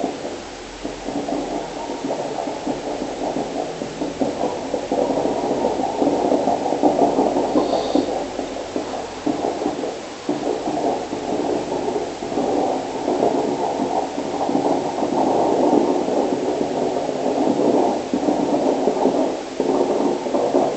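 Snoring: a continuous rattling snore, a rapid fluttering buzz, that starts abruptly out of a steady hiss and keeps going with only brief dips.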